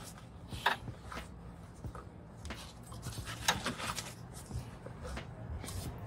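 Handling noise of a gloved hand pressing paper shop towels into the open thermostat housing to soak up coolant: scattered rustles, scrapes and small clicks against engine-bay parts.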